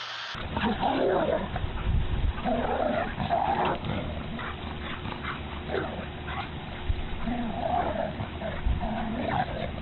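A boxer and a smaller white dog play-wrestling, making short pitched vocal noises in irregular bursts, mixed with scuffling and a few dull thumps.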